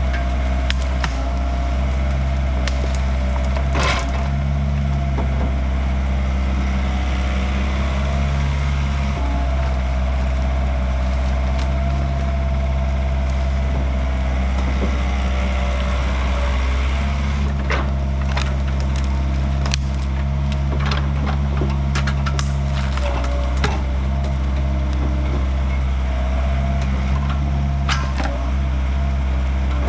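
Yanmar B50 excavator's diesel engine running steadily while hickory wood cracks and splinters as the machine breaks it up. There are sharp snaps about four seconds in and a run of them in the last third.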